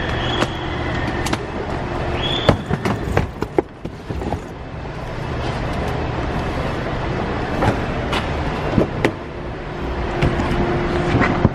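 Luggage being handled into a sedan's trunk and the car door opened: scattered knocks and clicks over a steady low hum. A high electronic beep sounds at the start and again briefly about two and a half seconds in.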